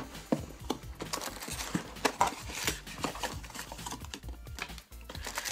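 Irregular clicks, taps and light rustling of hands handling a white plastic headset and its cardboard box packaging.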